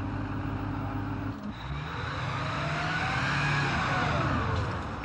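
M2 Bradley infantry fighting vehicle's diesel engine running steadily. After about a second and a half the sound changes as the tracked vehicle passes close by, its engine and track whine rising and then falling in pitch, loudest a little past the middle.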